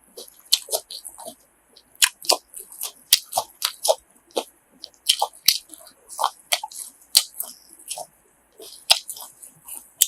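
A person chewing food with irregular wet mouth smacks and clicks, mukbang-style eating sounds.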